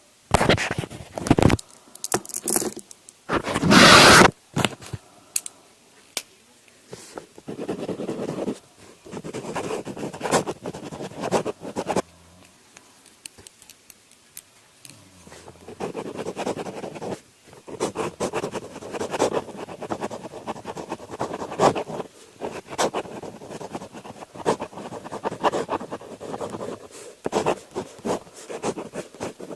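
Close-miked ASMR scratching and rustling of paper, with two short, loud crinkling bursts in the first few seconds followed by long stretches of soft, uneven scraping.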